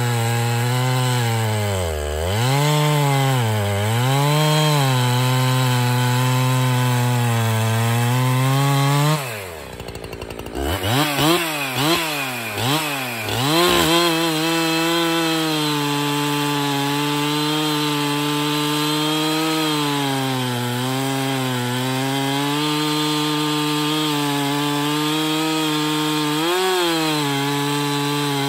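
Husqvarna 365 Special two-stroke chainsaw cutting through a softwood log under full throttle with a skip-tooth chain, its pitch dipping as the engine bogs under load. About nine seconds in it briefly drops off and blips up in a few quick revs, then runs at a steady pitch, cutting again, to the end.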